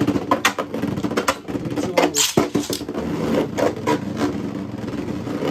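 Two Beyblade spinning tops in a plastic stadium, clattering and colliding in quick rapid clicks just after launch, then settling into a steady spinning whir with fewer hits from about halfway in.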